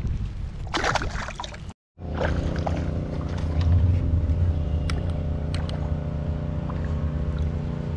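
After a short break about two seconds in, a boat motor runs with a steady low hum, with a few light clicks and knocks over it.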